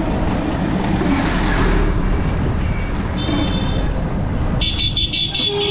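Road traffic noise with a steady low rumble, broken by vehicle horn toots: a short one about three seconds in and a longer, high-pitched one starting near the end.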